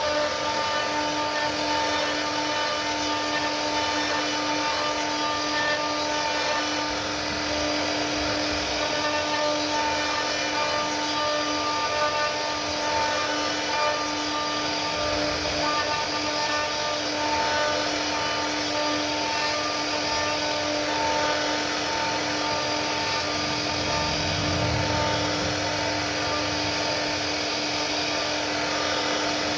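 CNC router spindle running steadily while machining wood on a surfacing pass that clears the face of a panel. It gives a constant whine over the cutting noise.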